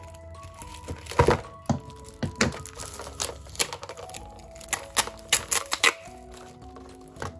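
Clear plastic wrap on a pack of pens crackling in sharp snaps as it is cut with scissors and torn off, loudest about a second in and again between about four and six seconds. Soft background music plays under it.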